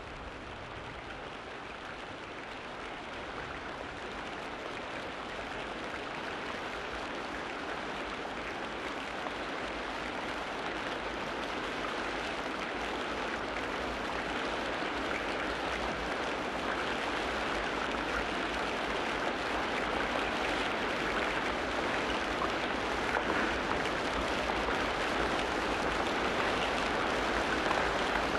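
Steady rain falling, a dense even patter that grows gradually louder.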